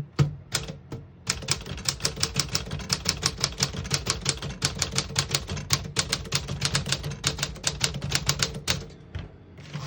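1949 Smith-Corona Sterling portable typewriter being typed on. A couple of clicks come first, then from about a second in a steady run of keystrokes, about five a second, types out a sentence and stops shortly before the end.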